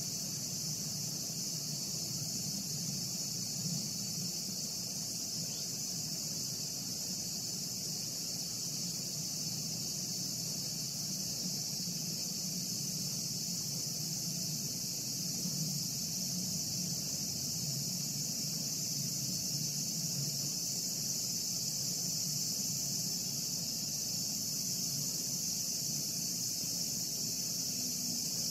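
Steady, high-pitched chorus of insects shrilling without a break, over a low steady rumble.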